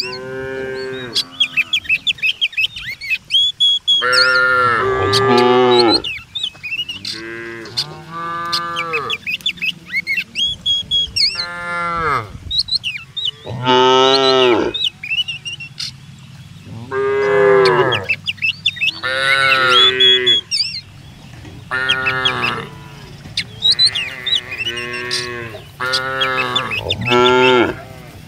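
Cattle mooing over and over, about a dozen drawn-out calls of a second or two each, some overlapping, with faint bird chirps in the gaps and a steady low hum underneath.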